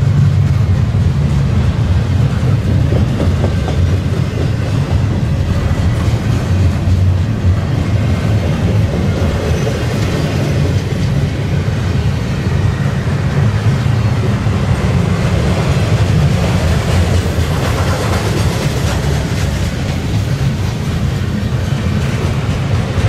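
Double-stack intermodal well cars rolling past, a steady deep noise of steel wheels running on the rails with clickety-clack.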